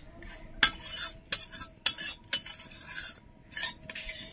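A spoon scraping and clinking against a cooking pot in repeated strokes about two a second, as cooked chicken curry is spooned out of the pot.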